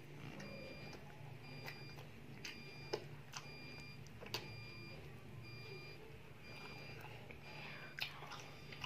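Quiet room tone with a steady low hum and a soft, high chirp that repeats about once a second. A few light clicks stand out, the sharpest about three, four and eight seconds in.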